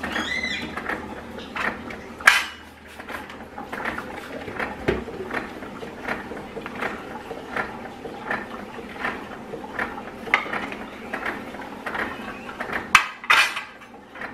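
Hard plastic and bottles clattering and knocking on a granite countertop as a Keurig's drip tray and cleaning bottles are handled, moved and set down, with a run of small knocks and two sharp, loud knocks about two seconds in and near the end.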